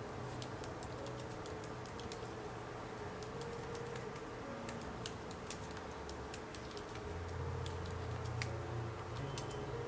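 Typing on a MacBook laptop keyboard: quick, irregular soft key clicks.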